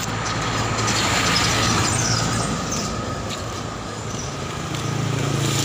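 Road traffic noise: a steady low engine hum, with a swell of passing-vehicle noise about a second in.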